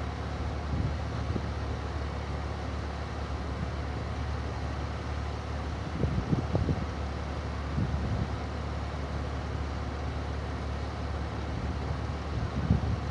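Wind buffeting the microphone outdoors: a steady low rumble with a few stronger gusts about six seconds in and again near the end.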